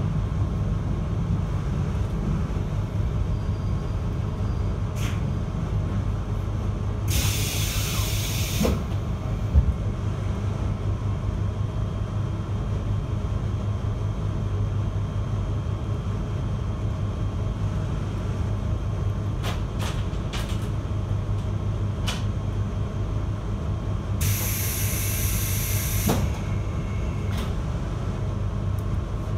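JR Hokkaido 721 series electric train running, heard from inside the carriage: a steady rumble and hum. Two short hisses of air break in, one about seven seconds in and one near twenty-five seconds, each lasting under two seconds.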